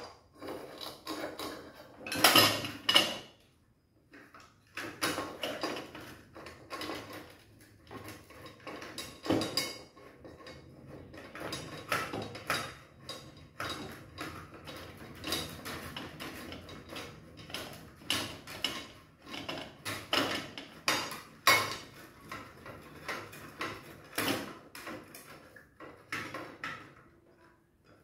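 Aluminium window profiles and metal hand tools being handled and set down on a workbench: irregular metallic clinks, taps and knocks, with a cluster of louder knocks about two to three seconds in.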